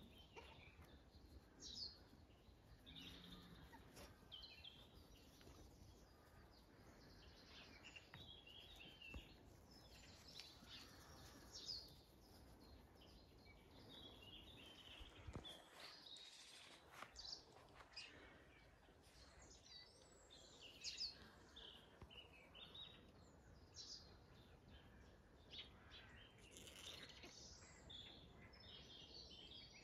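Faint birdsong: several small birds chirping and singing in short phrases over quiet background hiss.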